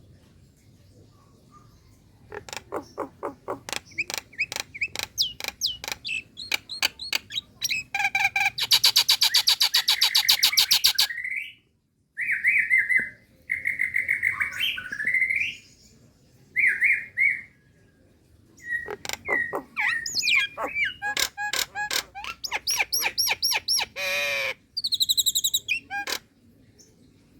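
Female Nias hill myna calling for a male. It gives strings of sharp clicking notes, a fast rattling trill, loud whistled notes, then more clicks and a long wavering call near the end.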